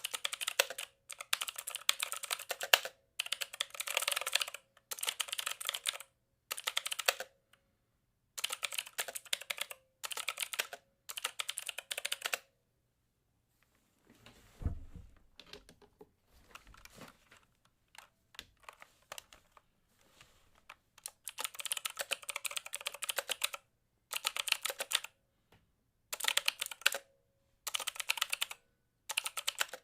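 Mechanical keyboard typing: quick runs of key clicks, each lasting a second or two, with short pauses between them. Midway the typing turns quieter and sparser for several seconds, with a low thump in that stretch.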